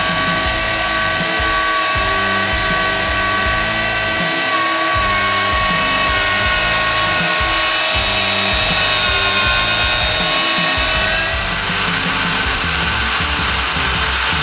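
Magnetic drill motor whining steadily while boring with an annular cutter; the pitch sits slightly lower through most of the cut and rises again near the end. Background music with a beat plays underneath.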